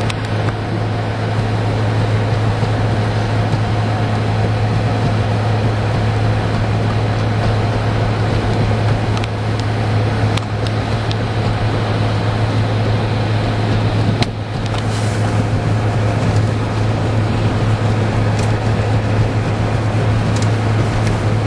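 A car driving on a highway in blowing snow: a steady low engine-and-road drone with wind and tyre noise throughout. A few sharp ticks come about ten and fourteen seconds in.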